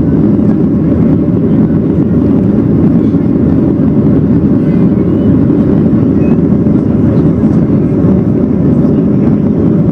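Steady engine and airflow noise inside the cabin of a Boeing 737-800 climbing after take-off, its CFM56-7B turbofans running at climb power; a deep, even rush with no breaks.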